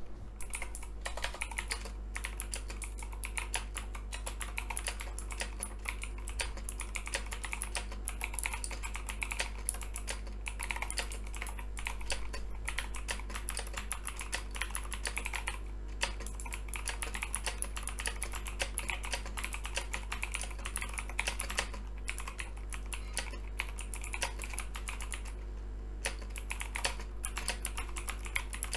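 Continuous typing on a Razer BlackWidow V3 TKL mechanical keyboard with clicky Razer Green switches and PBT doubleshot keycaps: a fast stream of sharp key clicks, with brief pauses about halfway and again near the end.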